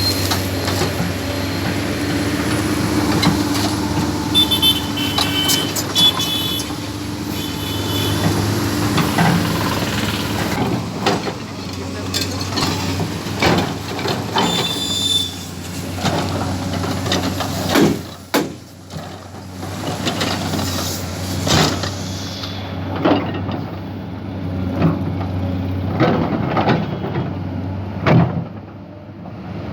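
Heavy road-construction machinery running: a steady low diesel engine drone with repeated clanks and knocks, and a few short high tones.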